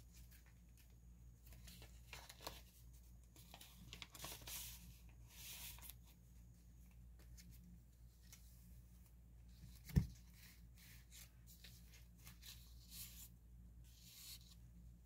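Faint rustling and swishing of paper pages being turned and handled in a handmade journal, with one short, sharp knock about ten seconds in.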